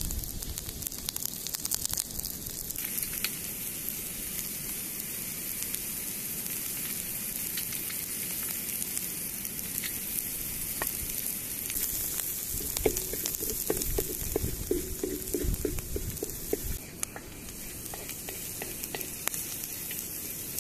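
Oil sizzling in a wide, shallow metal pan over a wood fire as chopped herbs, garlic and walnuts fry, with scattered pops all through. A run of short low knocks comes a little past the middle.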